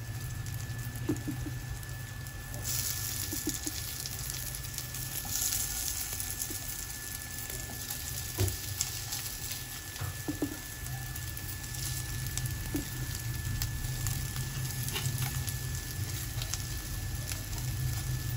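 A little oil sizzling in a nonstick frying pan as noodle-and-potato patties are laid in to shallow-fry, the sizzle growing brighter a few seconds in, with a few light taps of the patties against the pan. A steady low hum runs underneath.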